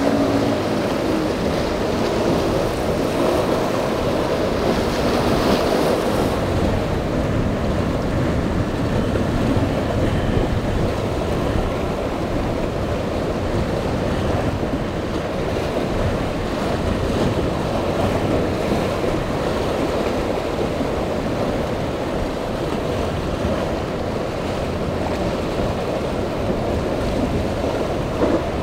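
Strong wind buffeting the microphone over the rush of rough, choppy sea, with boats' outboard motors and spray running underneath. A steady, loud noise with no breaks.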